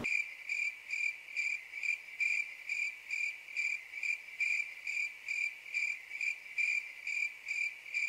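Crickets chirping in an even rhythm, a little more than two chirps a second: the stock 'crickets' sound effect for an awkward silence after a joke falls flat.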